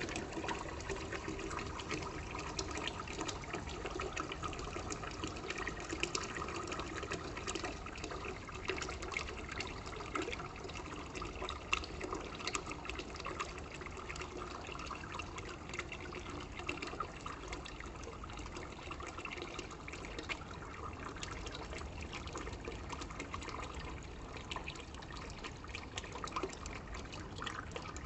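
Stream of water pouring into submerged poppy seeds, a steady trickling and bubbling with many small crackles as the flow churns the seeds.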